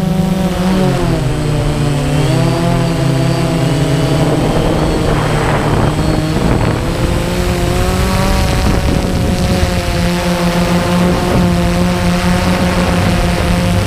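DJI Phantom quadcopter's motors and propellers running, picked up by the camera on the drone itself: a loud, steady whine made of several tones whose pitch sways in the first few seconds and again about two-thirds of the way through as the motors change speed to steer, then holds steadier.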